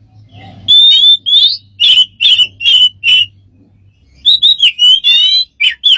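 A bird whistling a run of short, sharp notes, about three a second, some of them rising glides. After a brief pause it breaks into a quicker run of varied chirps and warbling glides near the end.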